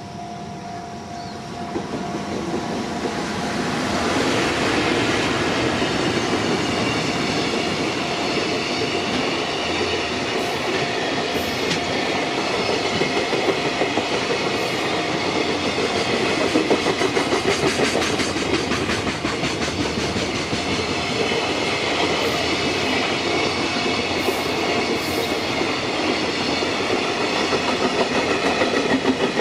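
Freight train passing close by: a blue electric locomotive draws near and goes past about three or four seconds in, then a long string of container flatcars rolls by with steady wheel clatter over the rail joints.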